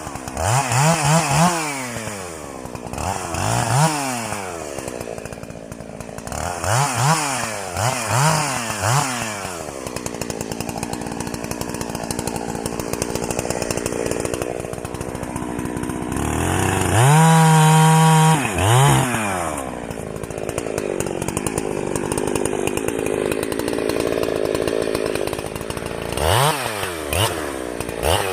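Chainsaw cutting small pine trees into sections: the engine is revved up and back down again and again in short blips, runs at a lower steady speed for a while, is held loud at full throttle for about two seconds just past the middle, then blips up and down again near the end.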